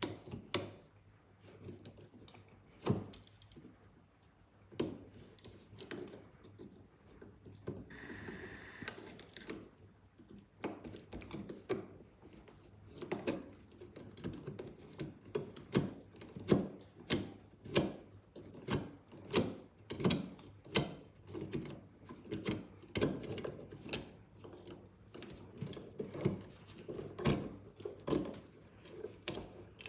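Screwdriver working the screws of a wall light switch and its cover plate: a run of small clicks and scrapes, sparse at first, then coming regularly about one or two a second from about halfway on.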